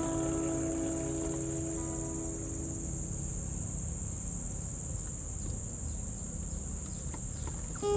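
A steady, high-pitched insect drone, with the last held note of background music fading out over the first few seconds.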